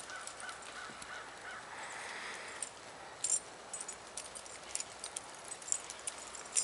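Scattered light crunches and clicks of dogs on leashes walking and sniffing about in fresh snow.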